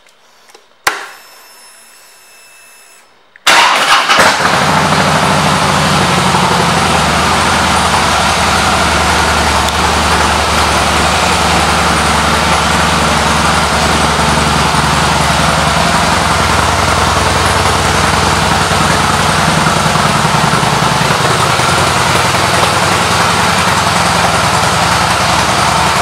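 A click about a second in and a couple of seconds of a thin steady whine, typical of a Harley's ignition being switched on and its fuel pump priming. Then, about three and a half seconds in, the 2012 Harley-Davidson Heritage Softail Classic's Twin Cam V-twin starts and settles into a steady idle through its Cobra aftermarket exhaust pipes.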